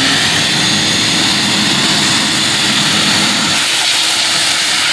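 Vacuum cleaner running steadily at full speed, sucking dirt and debris out of a concrete fountain bowl. It is a loud whooshing rush with a steady motor hum underneath.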